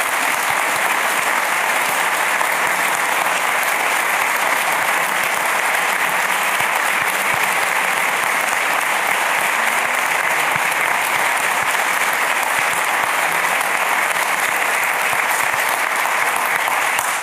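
Audience applauding: dense, steady clapping from many hands that holds at one level and stops at the end.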